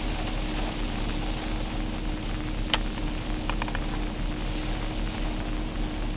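Strong hurricane wind blowing steadily, a rushing noise with low rumble on the microphone. A single sharp click comes about two and a half seconds in, followed by a few faint ticks.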